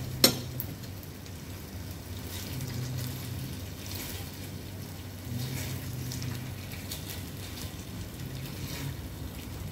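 Boneless chicken thighs frying in oil in a non-stick grill pan while a spatula turns them over. There is a sharp clink against the pan just after the start and soft scrapes later, over a light sizzle and a steady low hum.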